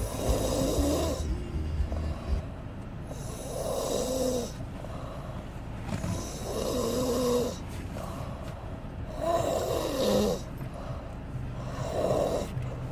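A person snoring in sleep: five snores about three seconds apart, each lasting about a second.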